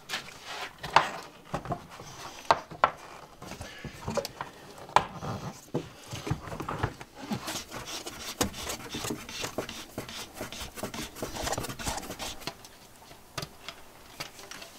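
Corrugated plastic hose being handled and fitted: irregular rubbing and scraping with scattered light knocks of plastic against wood.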